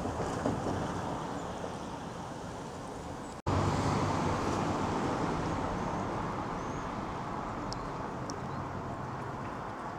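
Street traffic with wind on the microphone: a steady engine drone. After a sudden cut about three and a half seconds in it is louder, then slowly fades away.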